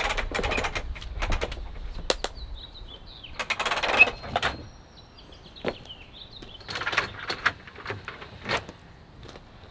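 Manual RV patio awning being pulled open with an awning rod: its metal arms and roller rattle and clatter in irregular bursts, loudest about four seconds in, then scattered clicks as it reaches full extension. Birds chirp faintly in the background.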